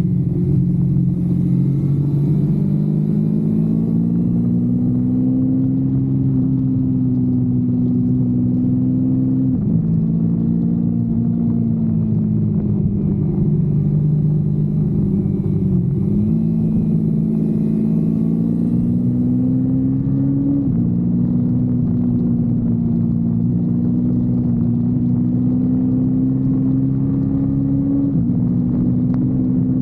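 Kawasaki Versys-X 250's parallel-twin engine under way, its pitch climbing slowly and then dropping abruptly about four times as it is shifted up through the gears, over a low rumble of wind and road.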